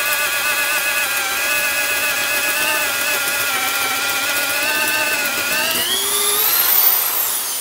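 Makita HP2040 hammer drill in first gear boring a wood auger bit into a timber beam: a steady motor whine under load that wavers slightly in pitch. About six seconds in the whine rises as the motor speeds up with the load coming off, then it falls as the drill winds down near the end.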